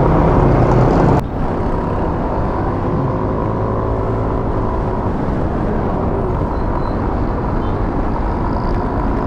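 Motor scooter riding along: a steady engine hum mixed with wind and road noise on the helmet microphone. The noise drops suddenly about a second in, then runs on steady.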